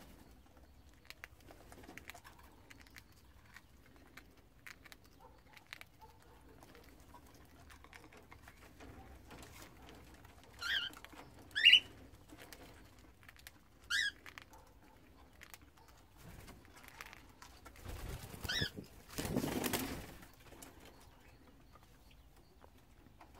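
A few short, rising cockatiel calls, four in all, spread through the middle of a mostly quiet stretch, then a brief burst of wing flapping near the end.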